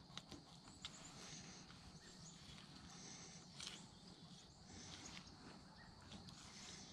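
Near silence: faint outdoor background with a few soft clicks.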